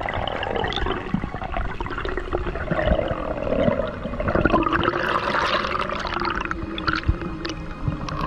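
Underwater noise picked up by a diver's action camera: water rushing and gurgling against the camera while swimming, with some wavering, muffled tones.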